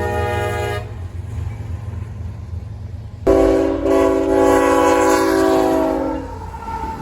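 Locomotive's multi-chime air horn sounding over the low rumble of a passing train: a blast cuts off about a second in, then a second blast of about three seconds sounds from about three seconds in.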